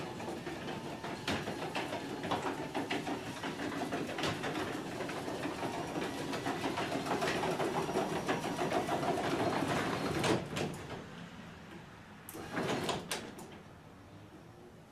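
Newly installed garage door opener driving a sectional garage door upward: the motor running with clicking and rattling as the door travels, during setting of its travel limits. The run stops about ten seconds in, and a short rattle follows a couple of seconds later.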